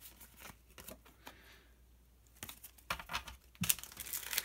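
Trading cards being handled by hand, with scattered light clicks and slides. Near the end a dense crinkling starts: a foil booster-pack wrapper being picked up and handled.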